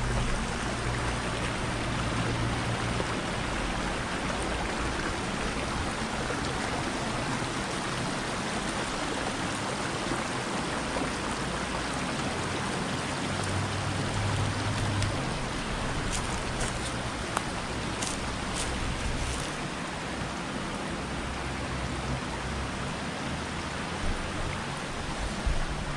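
A shallow river running over rock ledges and small cascades: a steady rush of flowing water.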